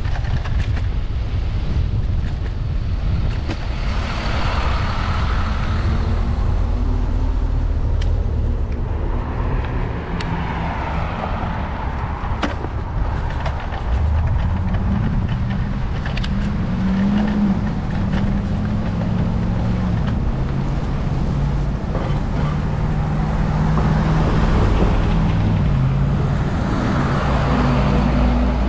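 Road traffic heard from a moving bicycle: motor vehicles passing with tyre hiss that swells and fades several times, and from about halfway an engine's hum that steps up and down in pitch, over a constant low rumble.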